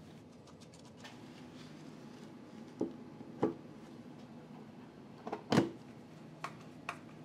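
Dull clunks and knocks as a heavy EP Cube battery module is lowered and seated onto the battery stack. The loudest clunk comes about five and a half seconds in, with a few lighter taps before and after it.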